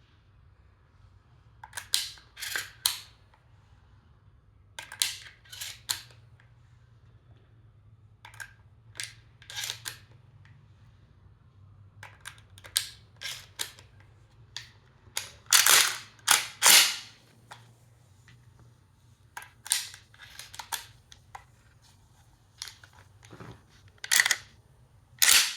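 Shotgun being loaded: groups of sharp clicks and clacks as shells are pushed in and the action is handled, with a louder, longer pair of clacks about two-thirds of the way through.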